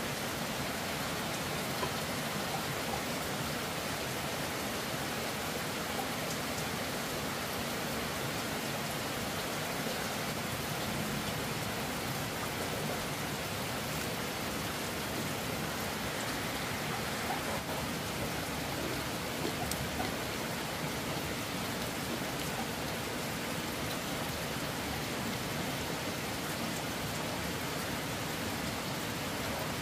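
Steady rain falling: an even hiss with faint scattered drop ticks and no change in strength.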